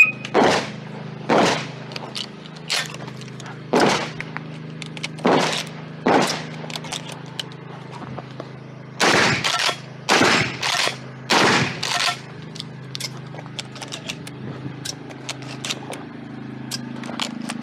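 12-gauge shotgun firing birdshot in a rapid string of about a dozen shots, roughly a second apart, a pause of about three seconds, then a quicker run of shots, with lighter clicks and knocks of the action and targets after the last shot.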